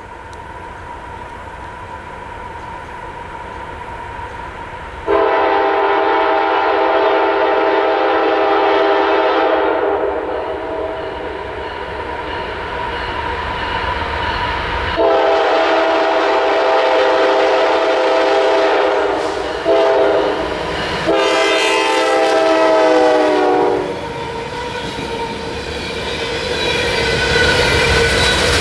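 A CSX diesel locomotive's multi-chime air horn sounds the long-long-short-long grade crossing signal as a loaded coal train approaches. The last long blast slides down in pitch as the locomotive passes. The rumble of the locomotives and the clatter of the coal cars' wheels on the rails follow.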